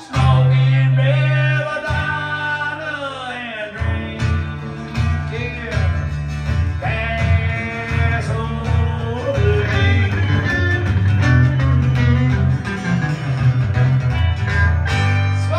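Live country band playing: guitars with gliding, bent lead notes over strong, steady low bass notes.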